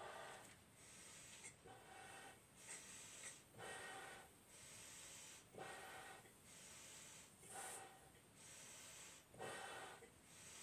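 Faint, repeated breaths of a person blowing up two clear Bobo balloons at once by mouth through a Y-shaped tube: breaths in and long puffs of air out, about one every second or two.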